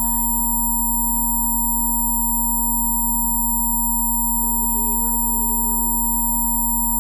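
Electronically generated Rife healing-frequency tones: several pure sine tones held steady at once, one low, one in the middle and some very high. Faint, slowly shifting ambient music with singing-bowl-like tones plays underneath.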